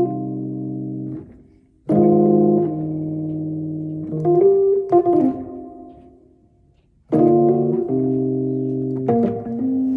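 Fender Rhodes electric piano playing held chords that ring and fade away, a new chord struck about two seconds in and again about seven seconds in, with a few higher notes added over them.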